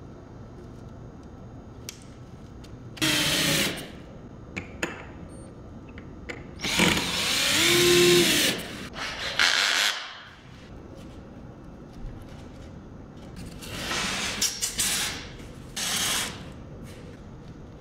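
Cordless drill run in several short bursts, boring into extruded polystyrene foam; the longest burst, about two seconds, rises and falls in pitch.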